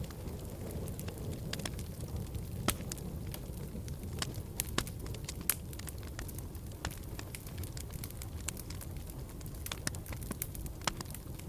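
Fire burning in a fireplace: a steady low rumble of flames with irregular sharp crackles and pops scattered through it.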